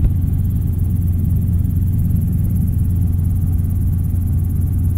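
Robinson R22 helicopter in cruise flight, heard from inside the cockpit: a steady, loud low drone of engine and rotor that does not change.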